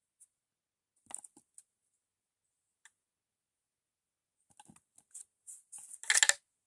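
Small plastic toys and packaging being handled: scattered light clicks and rustles, busier and louder just after six seconds.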